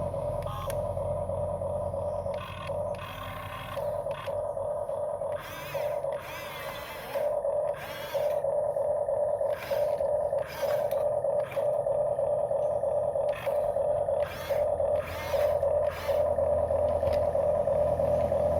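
Huina RC excavator's small electric motors whining at a steady pitch, broken by many short grinding, scraping bursts, each a fraction of a second long.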